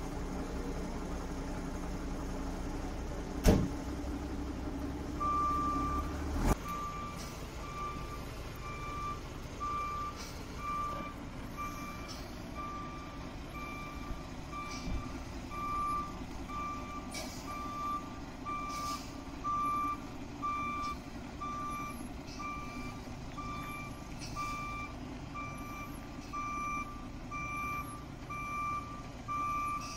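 A truck's warning beeper sounding a steady single-pitched beep, about three beeps every two seconds, starting about five seconds in, over a low rumble. A sharp knock about three and a half seconds in is the loudest moment, with a second, smaller knock a few seconds later.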